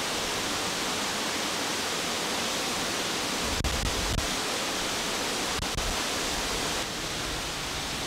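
Steady rush of water from a large waterfall, an even noise with no break. A few brief knocks and low thumps come about halfway through, and the level dips slightly near the end.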